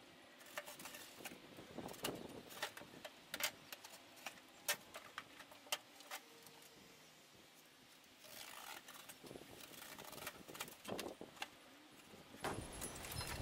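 A knife cutting through a waxed cardboard vegetable carton: a run of faint, sharp crackling clicks, a short pause about six seconds in, then denser scratchy cutting.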